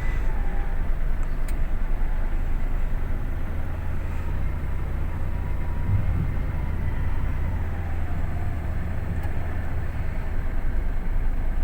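A truck engine running steadily, a low rumble with a faint whine over it.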